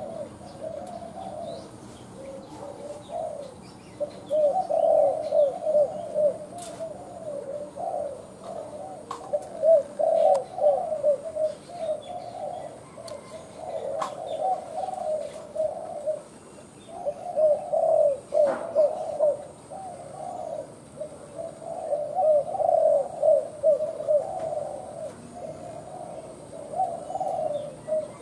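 Spotted dove cooing: runs of quick, low coos, one run after another with short breaks, and a few sharp clicks between them.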